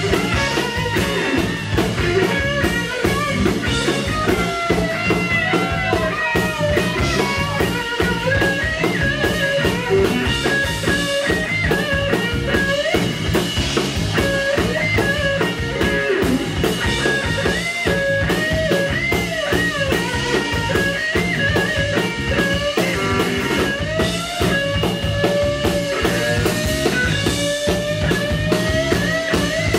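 Live blues-rock band playing: a lead electric guitar line of bent, gliding notes over electric bass and a drum kit.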